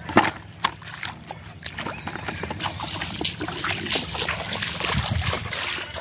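Irregular splashing and sloshing of bare feet and hands in shallow muddy water, with a sharp knock just after the start as a catfish is thrown into a plastic bucket.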